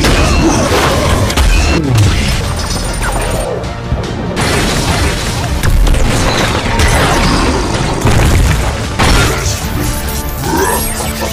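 Action-fight sound effects over background music: repeated booms, crashes and impact hits.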